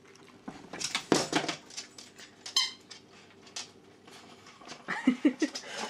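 A Duvo Plus vinyl squeaky dog toy, shaped like a dog biscuit, squeaks once, briefly and high-pitched, about two and a half seconds in. Clicks and rustles of the toy being handled come before and after it.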